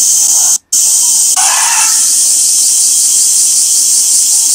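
Loud, steady, high-pitched shrill of a summer cicada chorus. It drops out for a split second about half a second in.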